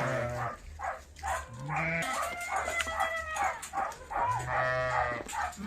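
A flock of livestock bleating, with many overlapping drawn-out calls one after another as the animals crowd in, expecting to be fed.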